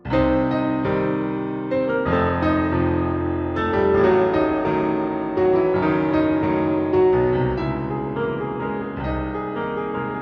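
Background music led by piano or electric piano, with a low bass line under it.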